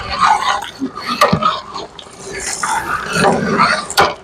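A long metal ladle stirring and scraping through a large pot of mutton qorma, with a couple of sharp knocks against the pot.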